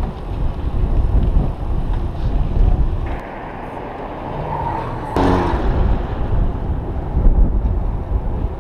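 Wind buffeting the microphone of a bicycle-mounted action camera while riding, as a loud low rumble. It drops to a quieter stretch around the middle and is broken by a short, sharp sound about five seconds in.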